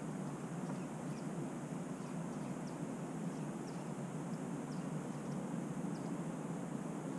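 Steady low outdoor rumble with faint bird chirps, short high notes falling in pitch about once a second.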